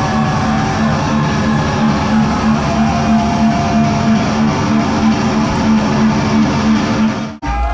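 Metal band playing live, with distorted electric guitars and bass ringing out on long held low chords. The sound breaks off suddenly near the end.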